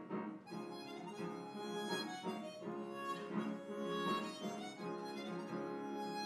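Harmonica and upright piano playing together, the harmonica coming in with held, reedy notes about half a second in over the piano accompaniment.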